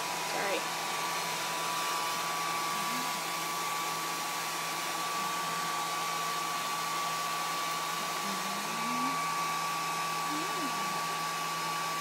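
Hair dryer running steadily: an even rush of blown air with a constant high-pitched whine from its motor.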